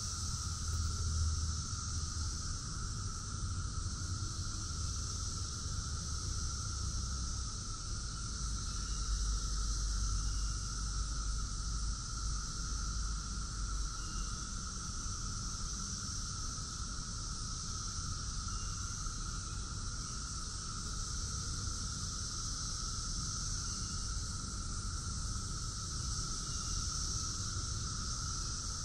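Brood X periodical cicadas in full chorus: a steady, unbroken drone with a lower whirring layer and a higher hissing layer, over a low rumble.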